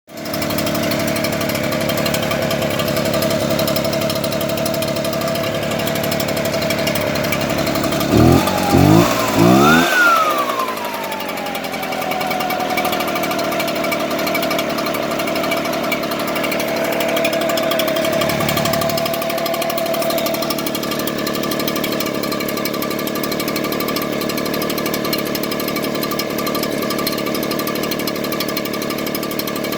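Echo two-stroke leaf blower engine idling roughly. About eight seconds in it is blipped three times in quick succession, each blip revving higher, and then it glides back down to idle.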